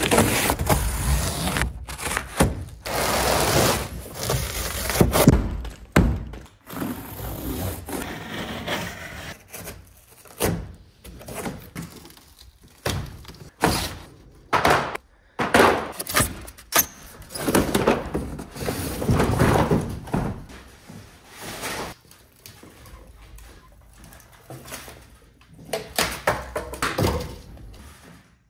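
Unpacking a stacked washer-dryer: a utility knife slitting and tearing a cardboard carton, packing pieces being pulled away, and scattered thunks and knocks as the heavy appliance is handled and tipped on a concrete floor. The noises come in irregular bursts with short pauses between them.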